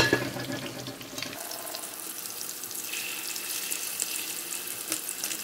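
Slices of curry-powder-coated king mackerel deep-frying in oil in a wok: a steady sizzle with fine crackling, and one sharp knock right at the start.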